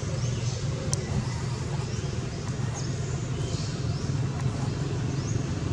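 Steady low rumble of road traffic, with a few short high chirps and a single click about a second in.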